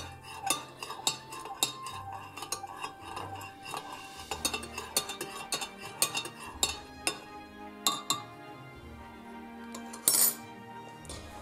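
Metal spoon stirring tea in a ceramic teapot, clinking against the pot's sides again and again. About ten seconds in comes a louder clatter as the spoon is set down. Soft background music plays underneath.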